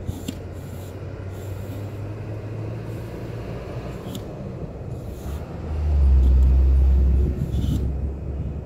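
Low steady rumble that swells loud for about a second and a half some six seconds in, with a few faint taps.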